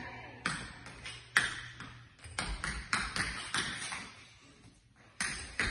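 A dancer's shoes clicking and tapping on a hard studio floor: a string of short, sharp, uneven clicks that stops about four seconds in and starts again near the end.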